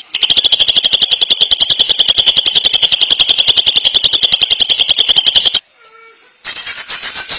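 Cucak ijo (green leafbird) singing in its 'ngentrok' style: a fast, nonstop rattle of sharp repeated notes, about ten a second. It breaks off suddenly about five and a half seconds in, a few faint thin whistles follow, and the rapid notes resume higher-pitched near the end.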